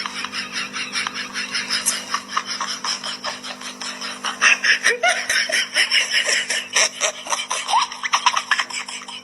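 A person laughing hard in fast, repeated bursts over a steady low hum.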